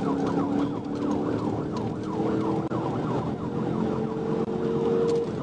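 Police cruiser siren in a fast yelp, sweeping up and down about four times a second, heard from inside the car over its engine running hard as the car accelerates.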